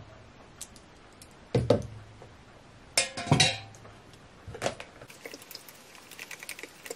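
Plastic spoon knocking and scraping against a plastic tub while stirring glue and water, with louder knocks about one and a half and three seconds in, then light quick clicks near the end.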